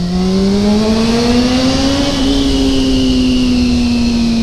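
Sport motorcycle engine accelerating, its note rising steadily for about two seconds, then easing off with the pitch slowly falling, under loud wind rush.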